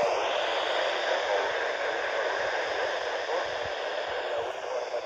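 Handheld FM radio hissing with steady static, receiving an ISS downlink that is fading out near the edge of its footprint.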